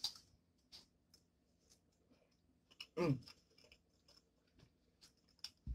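Close-up mouth sounds of a person chewing a bite of egg and cheesy noodles: soft, scattered wet clicks and smacks, with a brief hummed "mm" about three seconds in and a soft low thump near the end.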